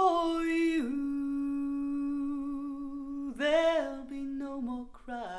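Unaccompanied female voice humming a slow wordless melody in long held notes with a gentle vibrato, played back over hi-fi loudspeakers and heard in the room. The voice holds one note, drops briefly about a second in, swells higher about three and a half seconds in, then steps down near the end.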